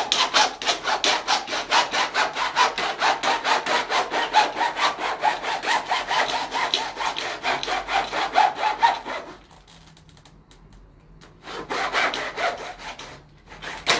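Hacksaw cutting through a plastic accordion-door panel in quick, even back-and-forth strokes, about four a second. The sawing stops about nine seconds in, then starts again for a short burst near the end.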